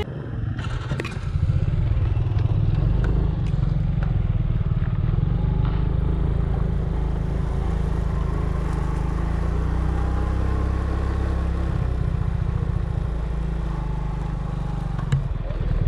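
A vehicle engine running steadily, heard on the move, with most of the sound in a low rumble.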